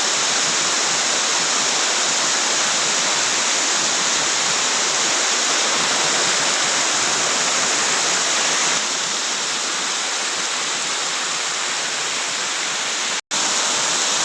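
Water rushing down a small mountain waterfall: a steady, loud hiss of falling and splashing water that eases slightly about nine seconds in and cuts out for an instant near the end.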